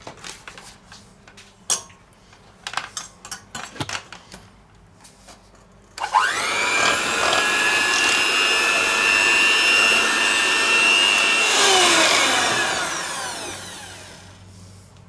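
Electric hand mixer with twin wire beaters beating batter in a stainless steel bowl. A few clicks and knocks come first; about six seconds in the motor starts with a rising whine and runs steadily, then it is switched off and winds down with a falling whine.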